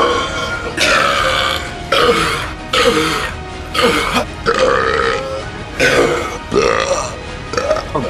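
A quick run of about eight loud burps from young men who have been chugging carbonated soda, each under a second long and about a second apart.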